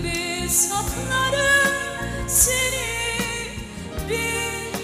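Background music with a singing voice carrying a slow melody over sustained accompaniment.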